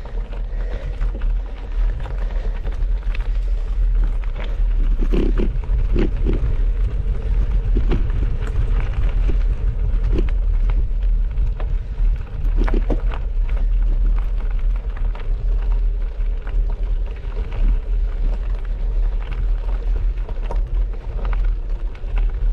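Wind rumbling steadily on the microphone of a bicycle ride along a gravel track, with scattered short knocks and rattles from the bike and the stony surface.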